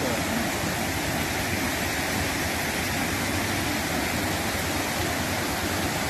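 Floodwater from an overflowing river rushing across a road, a steady, even roar of moving water with no let-up.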